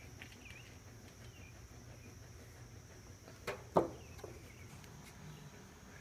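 Quiet outdoor ambience: a faint steady high chirring of insects, with a few faint bird-like chirps near the start. Two short knocks come about three and a half seconds in, the second one louder.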